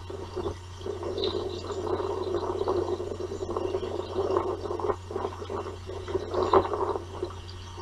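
Outdoor osprey nest-camera microphone picking up an uneven, fluttering noise over a steady low electrical hum, with a few faint clicks and a louder swell near the end.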